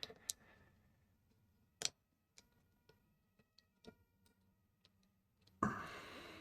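Scattered faint clicks and taps of small tools and parts being handled on a repair bench, with one sharper click about two seconds in and a short rustle near the end.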